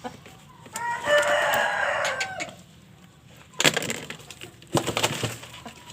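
A rooster crows once, about a second in, in a single call lasting about a second and a half. A few sharp knocks follow near the middle and toward the end.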